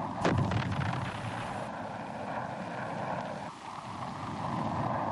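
Aircraft engine noise, steady and rushing, with a sudden bang about a third of a second in, dipping briefly near the end.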